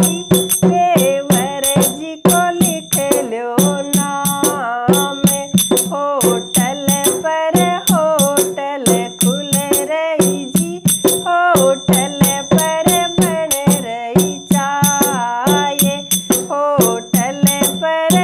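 A woman singing a Rajasthani folk song over a fast, even clicking beat from a rattle-like percussion instrument, with a steady low drone underneath.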